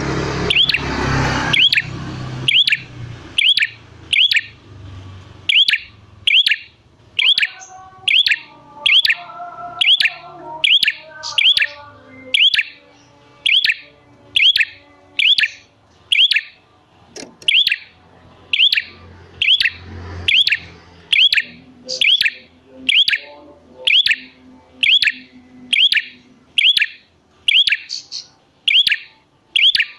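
A prenjak bird calling a sharp, high, quick note over and over at an even pace, a little more than once a second. A brief noisy rush sounds at the very start, and fainter, lower chirps from other birds sit in the background.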